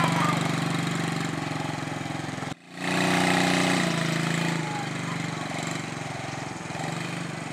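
Small ATV engine running at low speed with a steady hum as the quad is ridden. The sound drops out for a split second about two and a half seconds in, then the engine grows fainter as the quad moves away.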